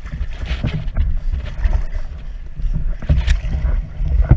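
River water sloshing and splashing around a canoe, with irregular knocks and a heavy low rumble on the camera.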